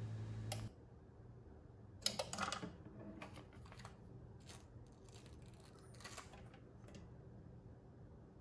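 Impulse heat sealer humming while its heating wire is on, then cutting off with a click about half a second in as its 8-second timer switches it off automatically. About two seconds in, the arm is lifted and thin vinyl balloon film crackles. Scattered crinkles and clicks follow as the film is handled.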